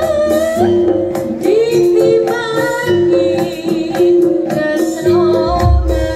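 Live jaranan music: a female voice sings a wavering, drawn-out melody over a band with low drum strokes.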